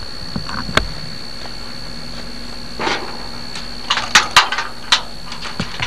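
A few sharp clicks and knocks, clustered about four to five seconds in, over a steady high whine.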